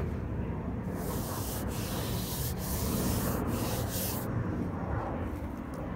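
A bare hand rubbing back and forth over a finished smooth-coat stucco wall, a dry hissing scrape in several strokes from about one second in until about four seconds in.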